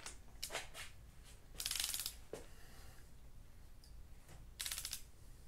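Torque wrench ratcheting on VR6 cylinder head bolts: two short runs of fast clicking, a bit under two seconds in and again near the end, with a few single clicks before them.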